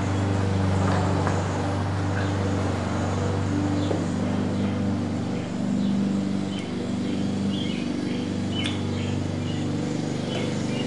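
A steady low mechanical hum throughout, with a few faint clicks of hands unclipping the scooter's CDI unit and its wiring connector.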